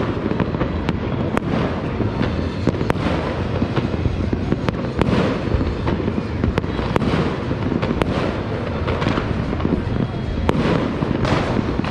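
Fireworks and firecrackers going off all across a city at once: a continuous rumble of distant bangs and crackle, with sharp single reports standing out irregularly, about one a second.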